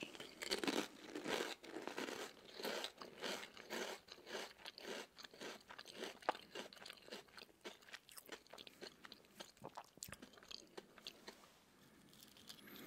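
Potato and purple sweet potato chips crunching close to the microphone: a rapid, dense run of crisp crackles that eases off near the end.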